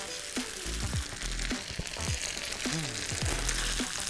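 Background music with a steady low beat and short falling tones, over a faint sizzle of mac and cheese frying in butter in a pan.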